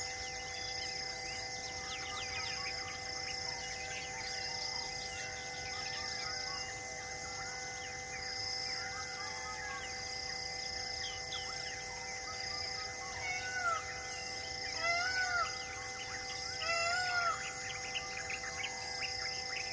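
A chorus of birds chirping and calling, with a short high note repeating about once a second and, about two-thirds of the way in, a few louder arching calls. Several steady held tones run underneath.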